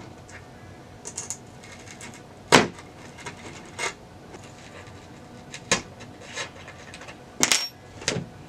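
Small sharp clicks and taps of a pointed tool poking bolt holes through the grip tape of a fingerboard deck, coming at irregular intervals, the loudest about two and a half seconds in.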